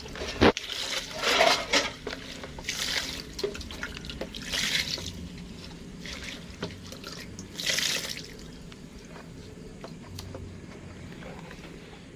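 Water splashing and sloshing in about five short bursts over the first eight seconds, then a quieter steady trickle.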